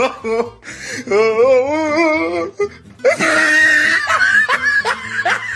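Music with a voice wavering up and down in pitch, then a harsh, noisy stretch about three seconds in, followed by a run of short rising sounds.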